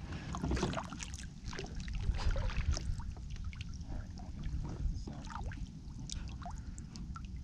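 Water lapping and splashing against a plastic kayak hull, with scattered small clicks and knocks over a steady low rumble.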